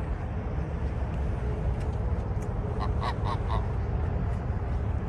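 A goose honking four short times in quick succession about three seconds in, over a steady low background rumble.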